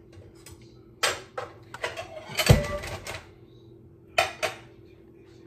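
Kitchen utensils being rummaged for a spoon: a run of sharp clicks and clatters, busiest in the middle with one heavier knock, and two more clicks near the end.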